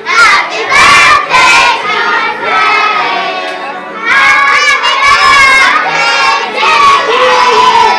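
A crowd of party guests, many of them children, singing together loudly, with children's voices shouting over the song.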